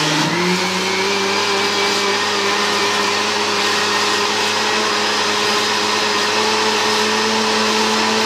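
Countertop blender motor running steadily, blending gram flour and yogurt into batter; it spins up in the first half second and then holds a steady, loud whine.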